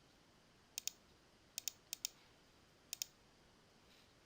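Computer mouse button clicks: four quick pairs of sharp clicks spread over a few seconds.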